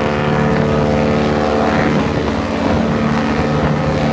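One long, steady blast of a cruise ship's deep horn, with wind buffeting the microphone underneath.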